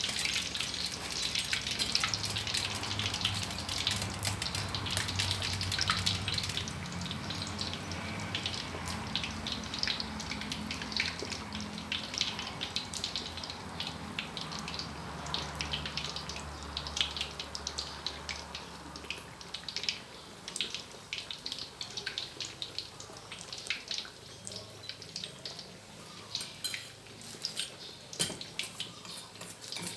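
Bread slices topped with minced pork deep-frying in hot oil in a steel wok: the oil sizzles with dense, continuous crackles and pops.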